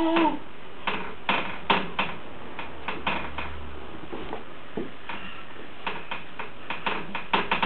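Irregular light clicks and knocks: a baby's hands tapping and grabbing at wooden banister spindles.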